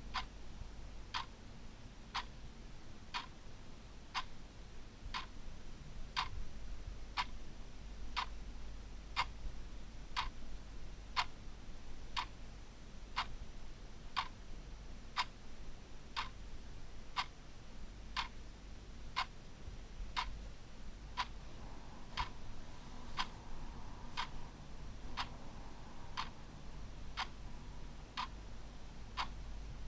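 Clock ticking steadily, one tick about every second, over a faint low hum.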